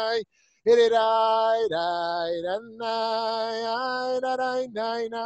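A man's voice singing a slow wordless tune in long, steady held notes with short breaks between them.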